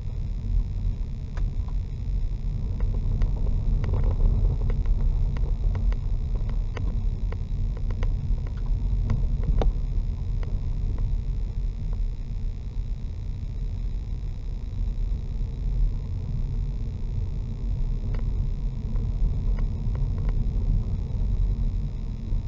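Car driving along a rough single-track lane, heard from inside the cabin: a steady low rumble of engine and tyres, with scattered ticks and knocks from the uneven surface, thickest in the first ten seconds.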